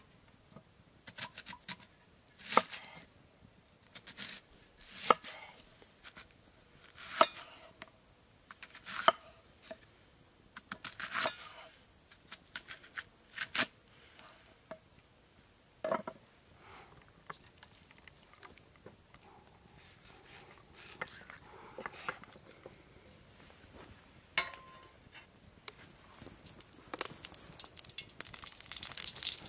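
A knife chopping food on a board: sharp, irregular knocks roughly every one to two seconds, with softer clicks of handling between them.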